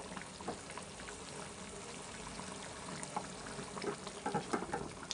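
Thick yogurt-based curry gravy bubbling and spluttering in a frying pan on high flame while it reduces, with a spatula stirring through it and scraping the pan. The stirring clicks come thicker and louder near the end.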